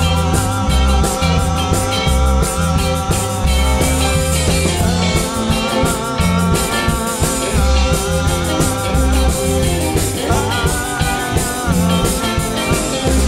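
Live rock 'n' roll band playing an instrumental break: an electric guitar carries the lead line, with a few bent notes about ten seconds in, over bass and a drum kit.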